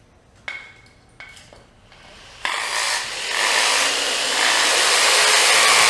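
Two short struck sounds with a brief ringing tone, then a loud, harsh rasping noise that starts about two and a half seconds in and swells, as part of a live experimental noise performance.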